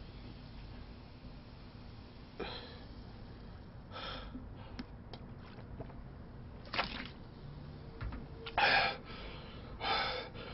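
A man's short gasps and huffs of breath between swigs of cola, about five of them, the last two the loudest, as he holds in a burp after chugging a 1.5-litre bottle.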